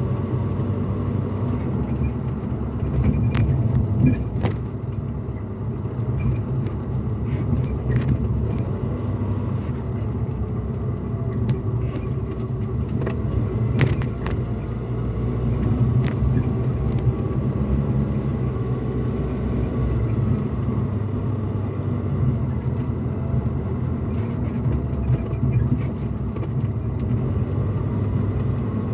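Cabin noise inside a moving pickup truck: a steady low rumble of engine and road, with a few brief knocks or rattles.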